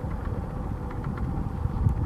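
Gusty low rumble of wind buffeting the microphone, over the distant engine noise of an Airbus A220-300 on final approach, with a faint steady hum underneath.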